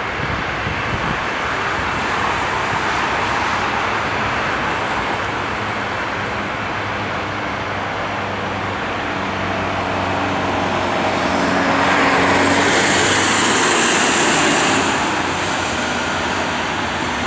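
Rolls-Royce RB211 turbofans of a taxiing Boeing 767-300 running at low taxi power: a steady jet roar with a hissing whine, swelling louder for about three seconds past the middle.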